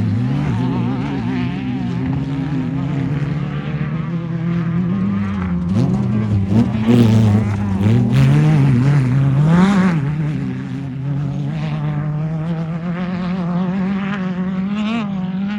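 Off-road race car engines running and revving, their pitch repeatedly rising and falling; more than one engine is heard, loudest about seven to ten seconds in.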